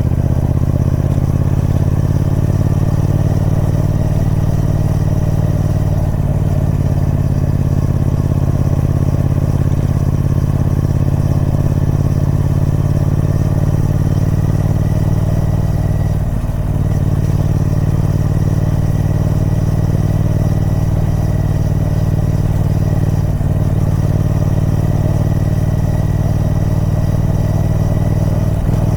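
Triumph Speed Twin 1200's 1200cc parallel-twin engine running steadily through its stock exhaust. There are short breaks in the note about six, sixteen and twenty-three seconds in.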